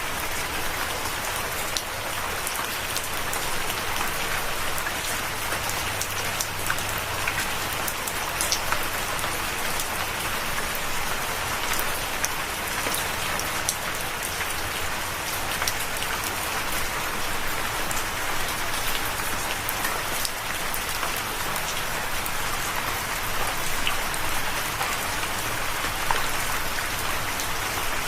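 Steady rain falling, a continuous hiss dotted with many small sharp drop impacts.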